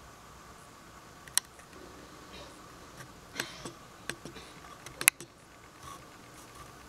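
Handling noise: a few scattered light clicks and taps, the sharpest about five seconds in, as a phone camera and the things in front of it are moved for a close-up.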